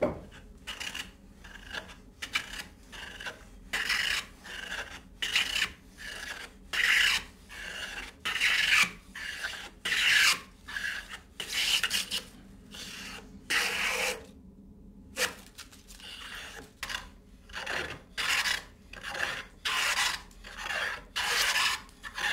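Long wooden jointer plane (varlope) being pushed along a timber edge in quick repeated strokes, each one a short hiss of the iron slicing off a shaving, a little more than one stroke a second, with a brief pause about two-thirds through.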